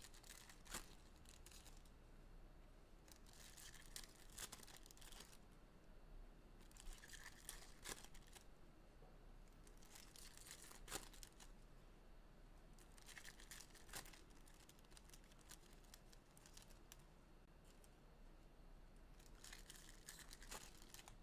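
Faint tearing and crinkling of trading-card packaging being ripped open, in several short spells of a second or two, with a few sharp clicks.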